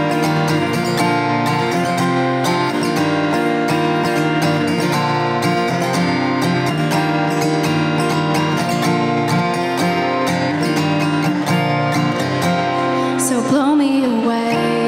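Acoustic guitar played solo in a steady strummed and picked pattern. A woman's singing voice comes in over it near the end.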